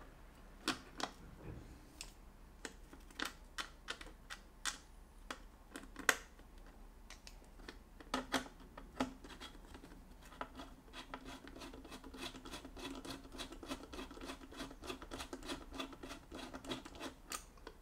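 Small screwdriver and screws being worked into a motherboard's M.2 SSD heatsink: scattered light metallic clicks and scratching, turning into a quick run of ticks about ten seconds in.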